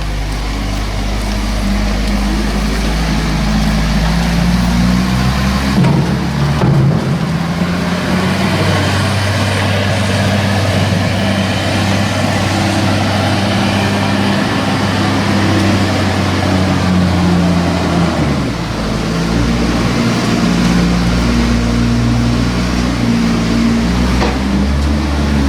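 Diesel engine of the loading-bucket machine working in the silage clamp, its revs changing a few times as it pushes chopped maize into the clamp.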